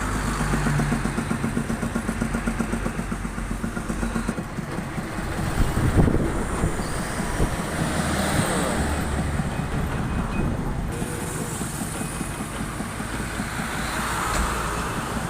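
Heavy road traffic passing: large diesel vehicles such as buses and trucks with a steady low engine rumble and tyre noise. A single short sharp knock stands out about six seconds in.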